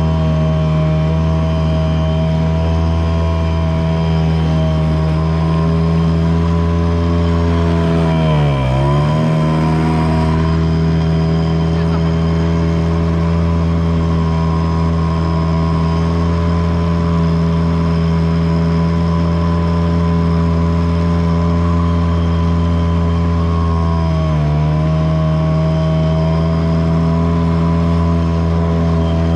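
Yamaha 5 hp outboard motor running steadily at full throttle, with the engine note dipping briefly and picking back up twice, about nine seconds in and again near twenty-four seconds.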